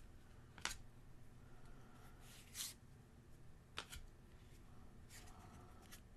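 Faint handling of Upper Deck Shang-Chi trading cards: a few short swishes and clicks as cards are slid and flipped, with quiet gaps between them.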